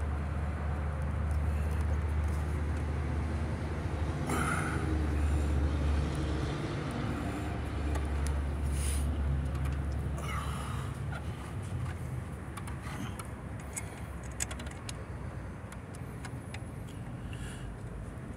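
A vehicle engine running with a steady low hum, easing off in the second half, with a few light clicks and rattles over it.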